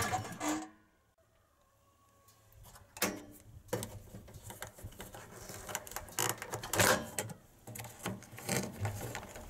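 Petrol generator engine running briefly and cutting off within the first second. After a short silence come scattered light plastic clicks, snaps and knocks from plugs and the flip covers of the generator's waterproof sockets being handled.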